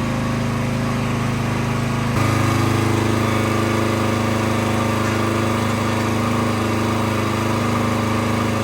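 Engine of a Norwood HD38 full-hydraulic sawmill running steadily; about two seconds in its note changes abruptly and it gets louder, then holds steady.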